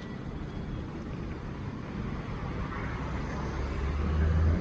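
Road traffic noise with a motor vehicle's engine rumble building up in the last second or so, then cutting off suddenly.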